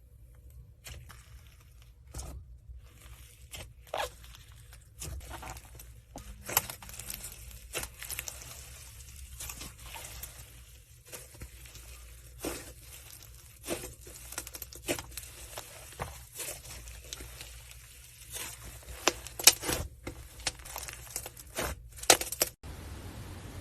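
Slime being squeezed and poked by hand, giving irregular crackles, clicks and pops, with the loudest snaps near the end. It then cuts to a steady hiss.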